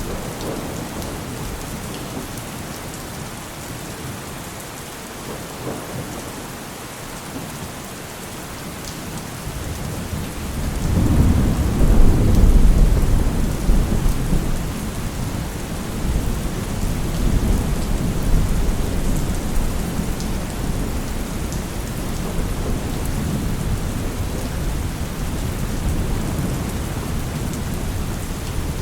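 Heavy rain falling steadily, with a long roll of thunder that builds about ten seconds in, peaks a few seconds later and rumbles on more softly to the end.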